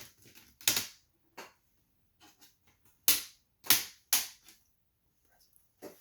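Plastic clips of a Lenovo IdeaPad 110's screen bezel popping loose as the bezel is pried off around its edge with a tool: about five sharp snaps, two close together about a second in and three in quick succession around three to four seconds in.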